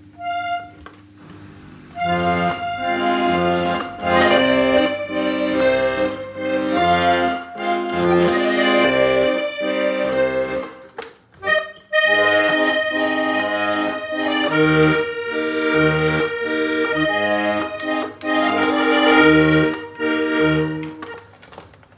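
A Hohner Corona III three-row diatonic button accordion in B♭–E♭–A♭ tuning playing a tune, held melody notes over a pulsing bass. The tune breaks off briefly about halfway, then picks up again.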